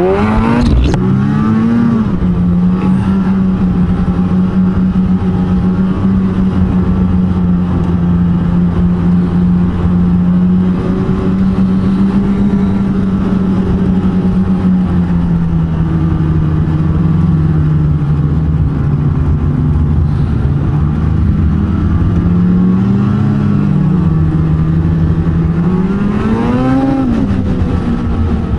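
Ski-Doo snowmobile engine running steadily at trail-cruising speed, heard from the rider's seat. Its pitch rises and falls briefly near the start and twice near the end as the throttle is eased on and off.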